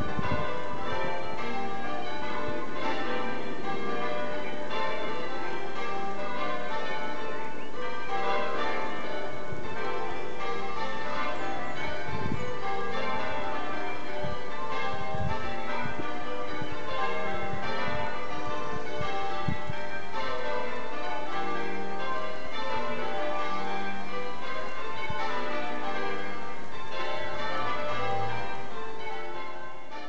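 Change ringing on a light ring of twelve church bells, tenor about 9 cwt, rung as maximus: an unbroken rapid succession of bell strikes in shifting order. The ringing fades out near the end.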